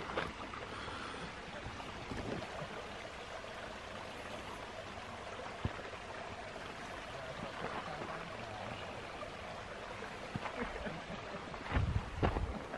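A steady, even hiss outdoors, with a few footfalls on a rocky dirt trail and some louder low bumps near the end.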